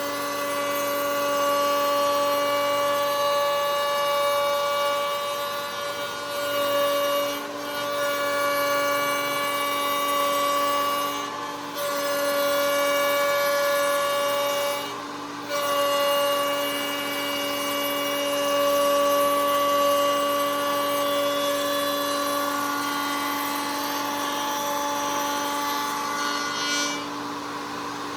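Table-mounted router running with a steady high whine while cutting a round-over along the edge of a wooden board. The sound dips briefly three times as the wood is fed through, and falls off near the end.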